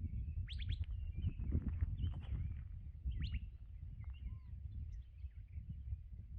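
Several birds chirping and calling, with short sharp chirps and a few whistled, arching notes scattered throughout, over a steady low rumble.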